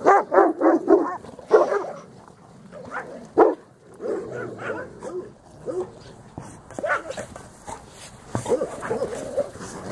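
Several dogs barking at play: a quick run of barks in the first two seconds, one loud bark about three and a half seconds in, then scattered barks.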